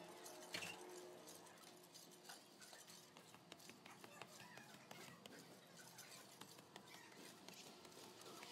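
Near silence with faint, irregular light taps and scuffs: sneakered footsteps on a stairway.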